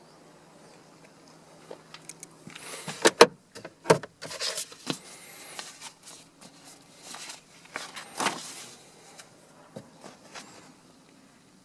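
Paper rustling and crinkling as a folded registration document is handled, laid on a cloth car seat and unfolded, with a few sharp knocks about three and four seconds in.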